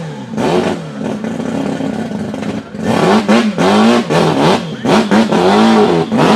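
Mazda 26B four-rotor twin-turbo rotary engine being revved in repeated throttle blips, each rising and falling in pitch. It holds a steadier, lower note at about one to three seconds in, then the blips come quicker.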